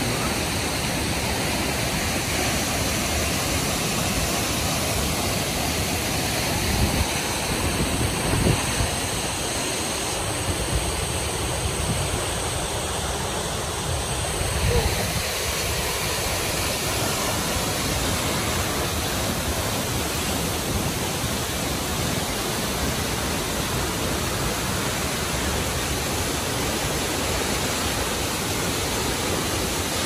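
Large waterfall rushing steadily into its plunge pool: a dense, even rush of water, with a few brief low thumps about a quarter and halfway through.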